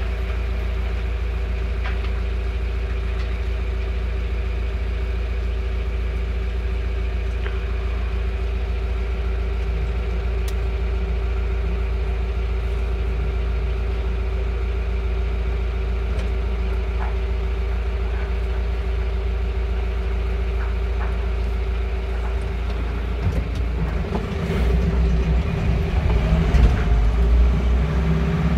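A vehicle engine idles steadily with a constant low rumble and hum. For the last few seconds it runs louder and more unevenly, as if the vehicle is pulling away.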